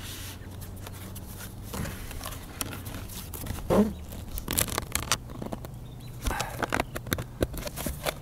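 Scraping, rustling and clicking as a pipe vent boot's flashing is twisted and slid under asphalt shingles, with a brief rising squeak a little under four seconds in.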